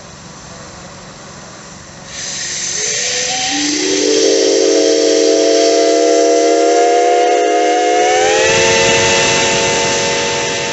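Reading Railroad six-chime steam whistle blowing. A hiss of steam comes first, about two seconds in. Then a chord of several notes comes in gradually, holds steady, and shifts up in pitch about eight seconds in.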